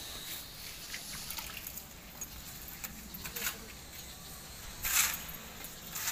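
Hand tools scraping through wet mortar: short scrapes, with one louder scrape about five seconds in.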